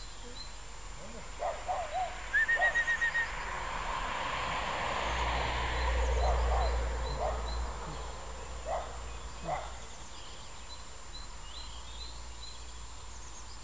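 Birds chirping in the background, with a quick run of about seven short, loud call notes about two and a half seconds in. A rushing noise with a low rumble swells and fades in the middle.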